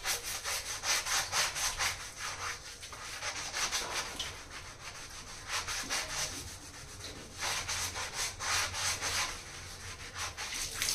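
Red scrubbing pad rubbed quickly back and forth over the wet ceramic top of a toilet bowl, which is coated in toilet cleaner. The scrubbing comes in several bouts of rapid strokes, with short pauses between them.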